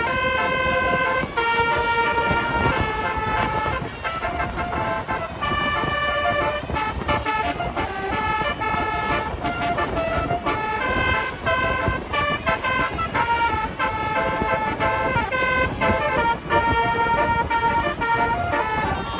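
Bus 'basuri' telolet air horn, roof-mounted trumpets playing a melody as a run of held multi-tone notes that step up and down in pitch, over a steady low rumble of traffic.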